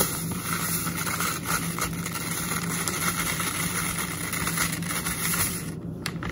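Dry falafel mix pouring from a plastic bag into a plastic bowl, a steady grainy hiss that thins out near the end, over a steady low hum.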